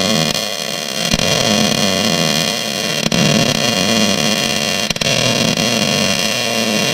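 Loud, steady hissing noise from a metal-repair tool, with brief breaks about one, three and five seconds in.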